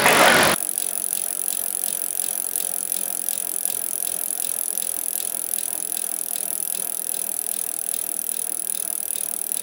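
BMX bike rolling, its freewheeling drivetrain ticking steadily about two to three times a second over a steady hiss.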